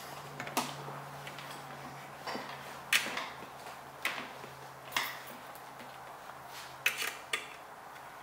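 Scattered light clicks and clinks of multimeter probe tips and leads being handled and placed on a graphics card's circuit board, about eight in all at uneven intervals. Under them is a faint steady low hum that stops near the end.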